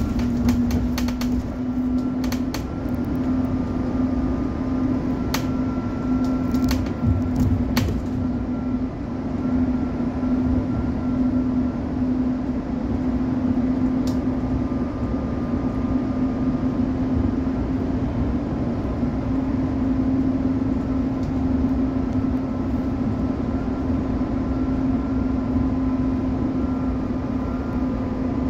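MAN city bus running steadily, heard inside the cabin: a steady engine and drivetrain hum with a fainter whine above it. Scattered clicks and rattles come in the first several seconds.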